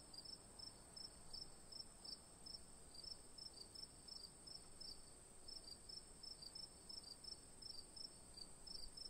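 Faint insect chirping: short high chirps, about three or four a second with brief pauses, over a steady high hiss.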